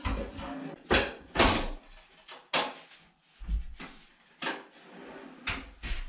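Knocks and clunks of a wooden sink cabinet and boards being shifted and fitted in a small room. About eight sharp knocks come at irregular spacing, with handling noise between them.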